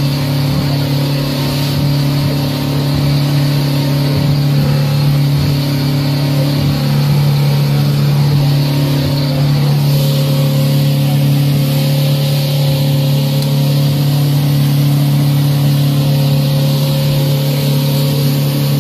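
Mercury outboard motor running steadily at speed, a constant even hum, over the rush of water and wind as the boat cuts through the waves.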